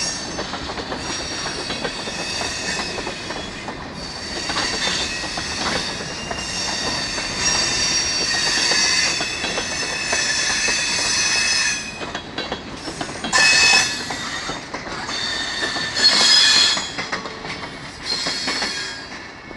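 Railroad tank cars and a caboose rolling past on steel rails, their wheels squealing in high, wavering tones, with scattered clicks from the wheels over the track. Two louder squeals stand out in the second half.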